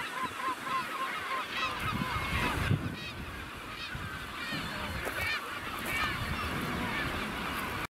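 Magellanic penguin colony calling: many short honking calls overlapping in a continuous chorus, cut by a brief gap near the end.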